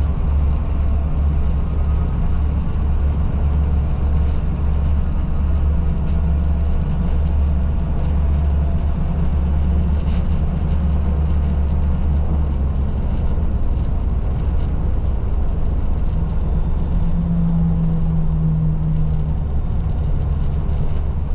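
Bus running on the road, a steady low engine and road rumble, with the engine note rising a little for a couple of seconds near the end.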